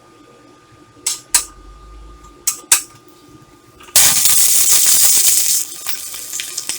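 Stick welding arc test: the electrode is tapped against the steel a few times with short sharp snaps, then an arc catches about four seconds in and crackles loudly for under two seconds before dropping to a weaker crackle near the end.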